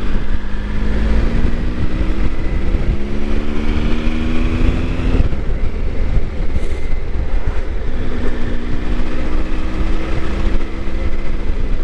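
Motorcycle engine pulling under load, its pitch climbing steadily, dropping away about five seconds in, then climbing again near the end, under heavy wind rumble on the microphone.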